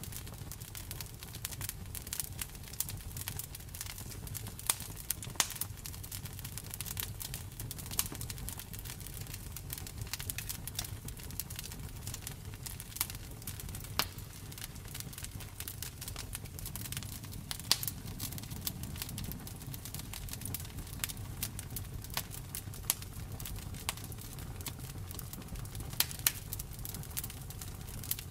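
Campfire burning, wood crackling and popping in irregular sharp snaps, a few much louder than the rest, over a low steady rumble of the flames.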